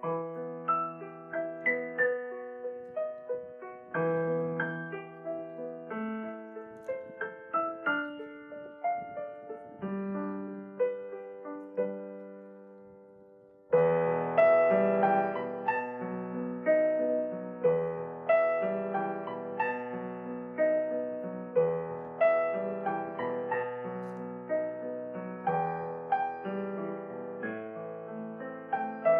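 Solo piano music playing a gentle melody. Near the middle it dies away, then a louder, fuller piano passage with deeper bass notes starts abruptly.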